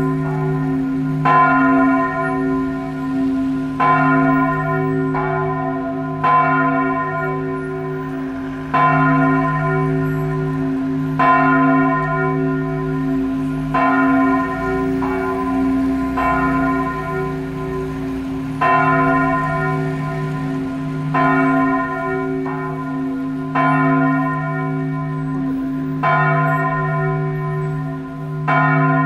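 Cathedral church bells tolling a slow death knell, a strike about every two and a half seconds, sometimes with a second strike close behind. A deep bell's hum rings on steadily beneath the strikes.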